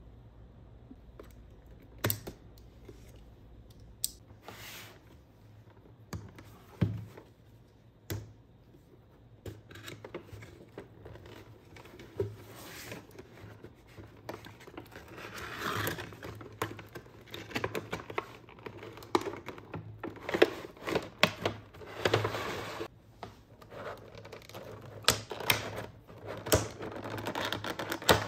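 Cardboard figure box handled and opened with scattered sharp taps and scrapes, then clear plastic blister packaging crinkling and clicking as the tray of figure parts is slid out, busier from about ten seconds in.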